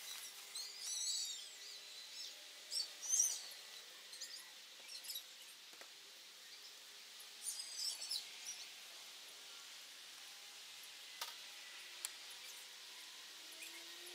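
Small birds chirping in short, quick bursts of high-pitched calls, in several bunches through the first half, over faint outdoor hiss; two sharp clicks come later on.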